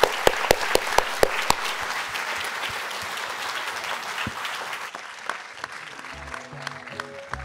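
Audience applause, with several sharp single claps close to the microphone in the first second and a half. The applause dies away after about five seconds, and music with held notes starts about six seconds in.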